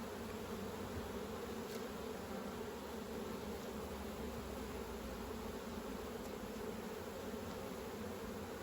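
Honeybees buzzing, a steady hum.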